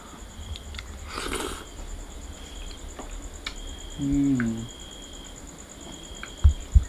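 A person eating rice and curry by hand: faint small clicks and a breath, a short low hummed 'mm' about four seconds in, and two dull knocks near the end.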